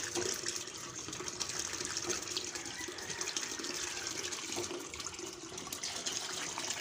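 Water pouring steadily from a hand pump's spout into a half-filled metal basin, splashing.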